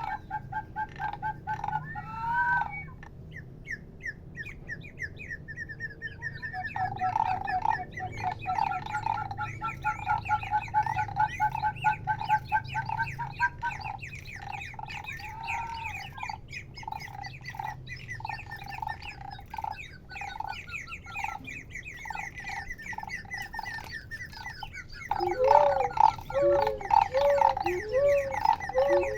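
Handmade sound-making objects giving bird-like calls: rapid trains of short, squeaky chirps, several at once. Near the end a louder, lower chirping in an even rhythm joins in.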